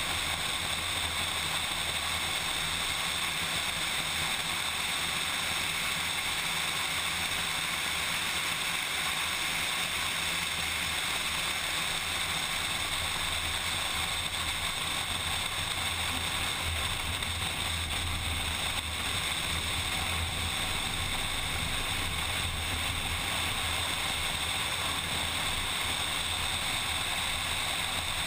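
A car at speed on a racetrack, heard from an onboard camera: a steady low engine drone under a constant rush of wind noise over the microphone, with no clear revs or gear changes.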